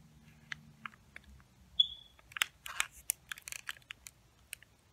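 Plastic wrapper of a king-size 3 Musketeers bar crinkling in the hands as the bar is turned over: irregular small crackles, sparse at first and densest in the middle. One brief high chirp about two seconds in.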